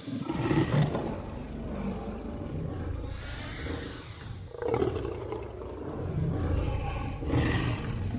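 Dinosaur roar sound effects: low rumbling growls, broken by a higher screeching roar about three seconds in and shorter roars near the middle and near the end.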